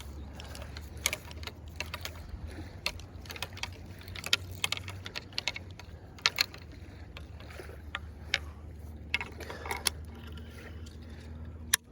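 Irregular sharp clicks and taps of fishing tackle being handled while a surf rod is rigged, over a steady low rumble.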